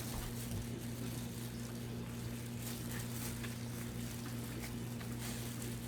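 Steady low hum with a few faint light clicks of small plastic headset parts being handled and fitted back together.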